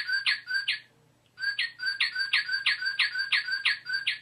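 Recorded northern cardinal song played by a singing bird figure: a series of clear down-slurred whistles, about four a second, breaking off just under a second in and starting again after a short pause.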